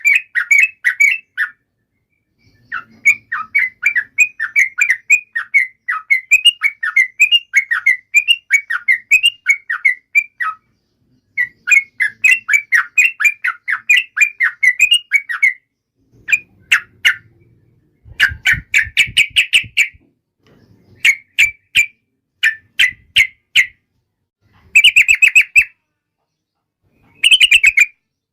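Yellow-vented bulbul (trucukan) singing a rapid chattering song of quick, bubbly notes. Long unbroken runs for the first fifteen seconds or so, then shorter bursts with pauses between them.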